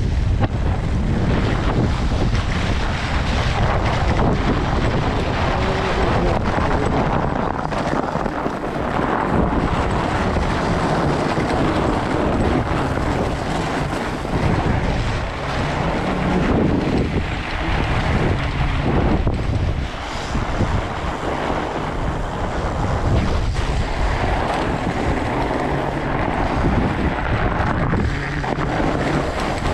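Loud, steady wind noise buffeting the microphone of a fatbike ride on a snow trail.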